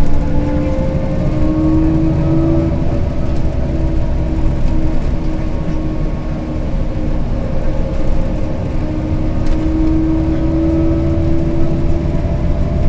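LiAZ 5292 city bus heard from inside the passenger cabin while under way: a steady low rumble of engine and tyres with a whine that climbs slightly in pitch twice as the bus picks up speed.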